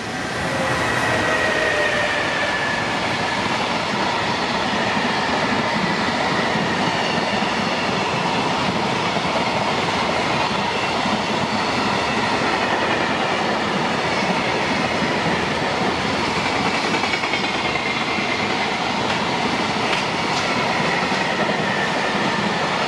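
A freight train of container wagons hauled by an electric locomotive passes close by: a loud, steady rumble and clatter of wheels on rail. Thin high whines slide slowly down in pitch as it goes by.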